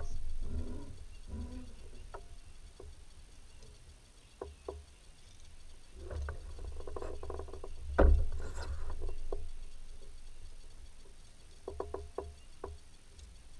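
Scattered knocks, taps and clatter of a largemouth bass being landed and handled in a plastic kayak, with one loud thump about eight seconds in.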